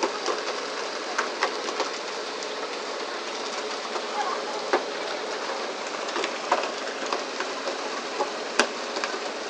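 Steady hiss of water spraying and splashing along the hull of a pole-and-line fishing boat, with scattered sharp knocks and slaps as fish and poles hit the deck. One sharper crack comes near the end.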